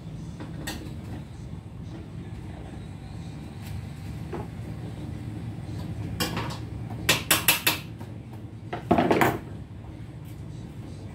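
Metal parts and hand tools clinking and knocking as they are handled on a workbench, with a quick run of sharp clicks about six to eight seconds in and a longer scraping rattle near the end, over a steady low hum.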